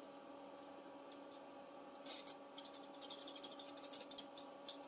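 Pen scribbling on a small paper card as a square is colored in: one short stroke about two seconds in, then a quick run of short scratchy strokes lasting about a second and a half, and one more near the end.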